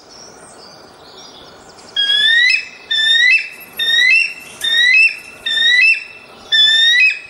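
Birdsong: faint high chirping at first, then from about two seconds in a loud, clear, rising whistled call repeated about once a second.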